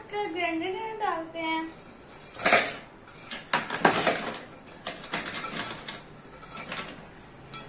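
Biscuits clattering as they are tipped from a glass plate into a plastic food-processor bowl: an irregular run of knocks and clinks starting about two seconds in.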